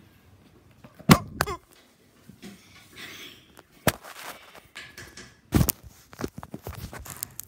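Handling noise from a camera sitting on a carpeted floor: irregular knocks, bumps and rustles as it is grabbed and moved, with the loudest knocks about a second in and halfway through. A short pitched squeak follows the first knock.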